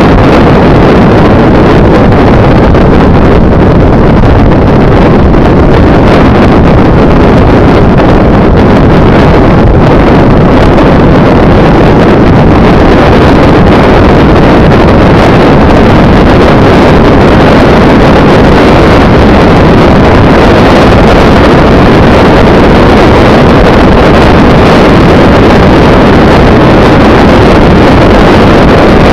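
Loud, steady wind rush on the microphone of a camera travelling along a road, with the running noise of the vehicle underneath.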